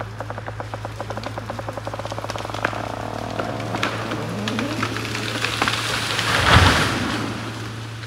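A tree coming down: the wood cracks in sharp snaps that come faster and faster, then the crown sweeps through the branches and hits the ground in a loud crash with a deep thud about six and a half seconds in. A steady low hum runs underneath.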